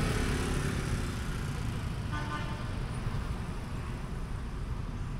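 Motorbike street traffic running steadily past a moving cyclo, with a short horn beep about two seconds in.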